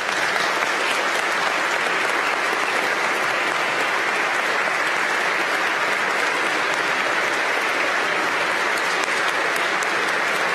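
Audience applauding steadily, a dense, even clapping with no break.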